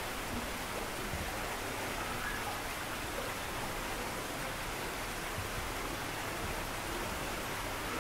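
A steady, even rushing noise, like running water, with no distinct events.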